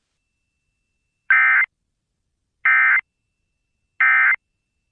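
Emergency Alert System end-of-message code (NNNN): three short bursts of digital data tones, evenly spaced about a second apart, marking the end of the flash flood warning activation.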